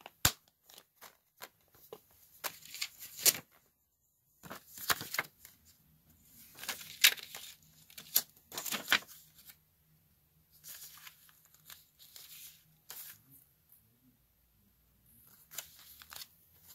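Paper inserts rustling and sliding against a plastic Blu-ray case as they are handled, among many sharp plastic clicks and taps. The loudest is a sharp click just after the start, as a disc is pressed off the case's centre hub.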